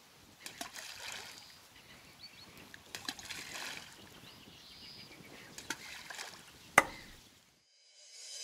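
A small hooked fish splashing at the surface as it is played in on float tackle, with light clicks of water and tackle. One sharp click near the end is the loudest sound.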